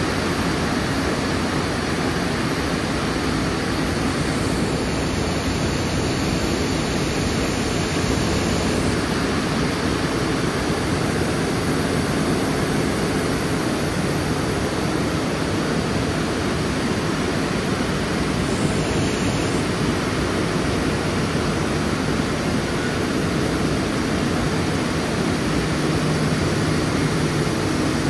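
Steady, loud, even running noise of a Hergen Crescent-former paper machine in operation, its motors, pumps and moving sheet blending into one continuous roar. A low hum comes up faintly near the end.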